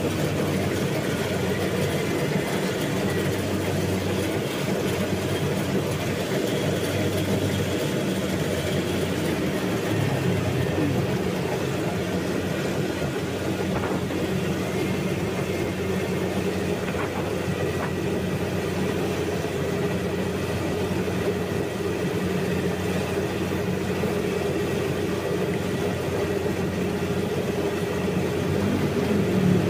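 Combine harvester running steadily: an even engine drone with machinery noise, with no change in speed.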